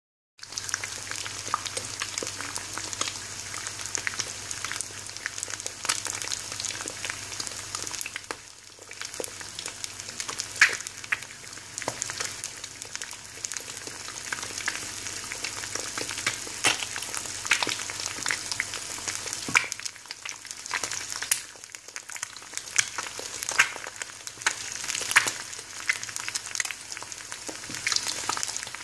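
Fried eggs sizzling in hot oil in a frying pan: a steady hiss with frequent, irregular crackles and pops.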